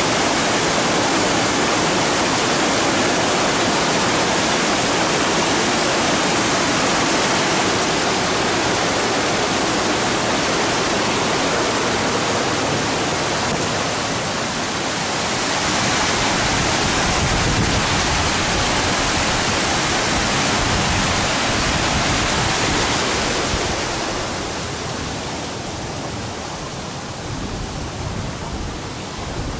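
Small spring-fed waterfall splashing into a rock pool: a steady rush of falling water. About three-quarters of the way through it becomes quieter and duller, leaving the softer flow of the stream.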